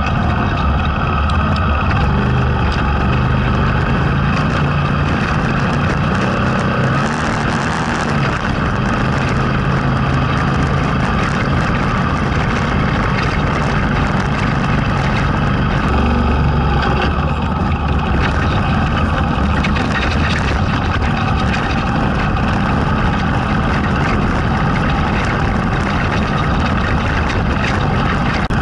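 A vehicle's engine running steadily while it drives along a rough gravel track, its note shifting a few times, over a constant rumble of tyre and wind noise.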